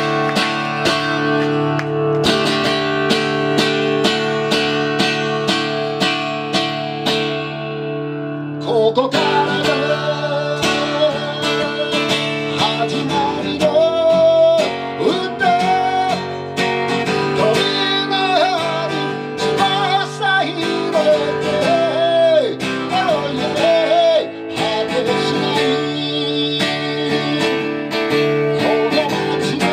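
Acoustic guitar strummed in a steady rhythm, with a man's singing voice coming in about nine seconds in and carrying the melody over the strumming.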